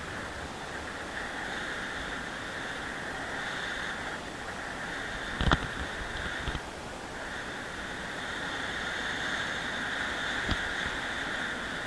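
Airflow rushing over the camera's microphone during a paraglider flight, a steady hiss with a faint whistle that eases off twice. A sharp knock about five and a half seconds in, and a smaller click near the end.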